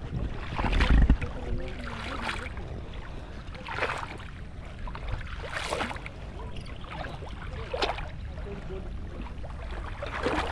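Water and mud splashing and sloshing in a shallow muddy pond, a splash every second or two, with a low rumble of wind or handling on the microphone about a second in.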